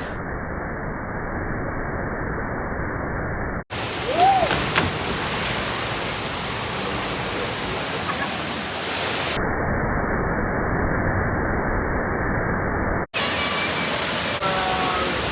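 Steady rush of falling water from a waterfall, cut off for an instant twice. A short rising-then-falling call sounds about four seconds in, and voices come in near the end.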